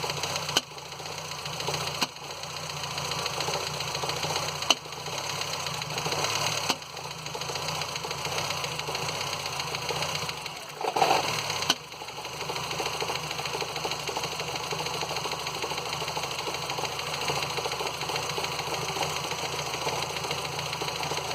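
Ford Fiesta Endura engine running steadily, making a noise that the owner cannot account for. A few sharp clicks stand out, and there is a brief louder patch about ten seconds in.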